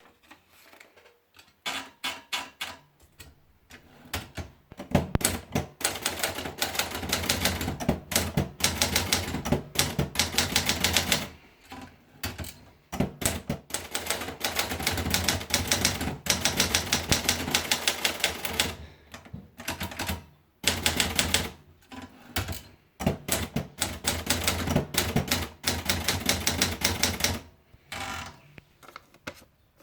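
Adler Gabriele typewriter being typed on: long runs of rapid keystrokes broken by short pauses and a few single strikes.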